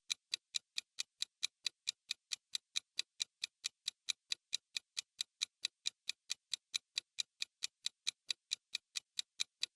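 Ticking-clock sound effect counting down the time to answer a quiz question: an even run of sharp ticks, about five a second.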